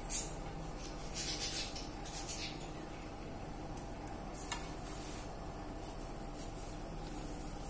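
Hands pressing and rolling crumbly besan laddu mixture in a steel kadhai: soft rustling scrapes in the first few seconds and a single light click about halfway through, over a steady low hum.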